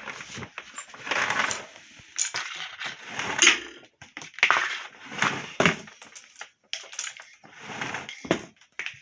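Plastic parts of a vacuum cleaner clattering and knocking as they are handled and fitted together: a busy run of irregular knocks and rustles with short pauses.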